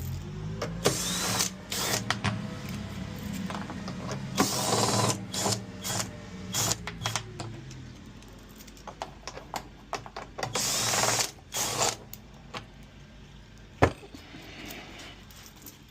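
Hand and power-tool work on a washing machine: a power tool runs in short spells among ratcheting and metal clicks, with a steady low hum for the first half and a single sharp knock near the end.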